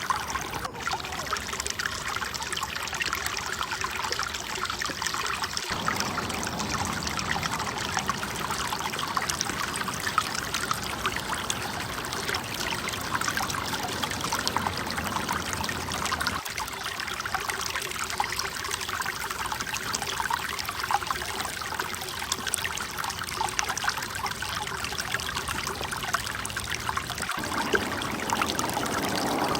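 Running water trickling steadily, a stream-like rush, with abrupt changes in its character three times.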